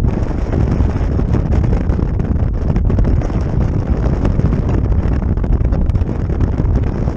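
Wind blowing across a GoPro's microphone on the open deck of a moving ferry: a loud, steady rush.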